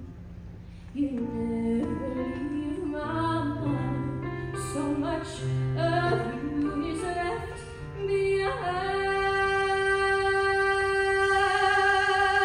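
A young woman singing a slow ballad solo into a microphone over soft instrumental accompaniment. About two-thirds of the way in she holds one long note, with vibrato near the end.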